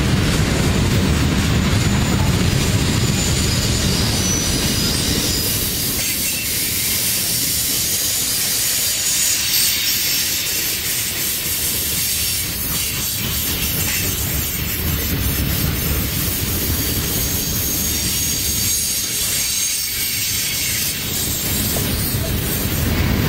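Covered grain hopper cars of a freight train rolling past close by: a steady, loud rush and rumble of steel wheels on rail, with faint high wheel squeals at times.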